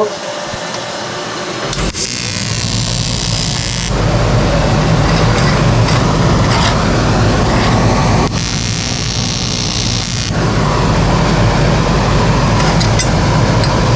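TIG welding arc on aluminium while tack welds are laid: a steady electrical buzz that starts about two seconds in, with a bright hiss that comes in twice for about two seconds each.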